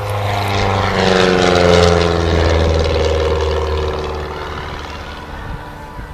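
Bücker Bü 131 Jungmann biplane's piston engine and propeller during an aerobatic pass. The engine note swells about a second in, then drops in pitch and fades as the aircraft flies past.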